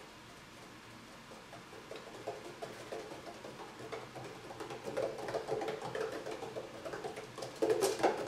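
Egyptian Mau kitten running in a homemade cat exercise wheel: a quick, uneven patter of paws on the wheel's curved track. It starts about a second and a half in, grows louder, and ends in a louder flurry of knocks near the end.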